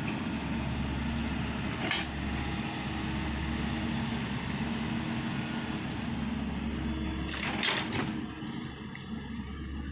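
Excavator's diesel engine running steadily, with a short sharp knock about two seconds in and a cluster of sharper noises near the end.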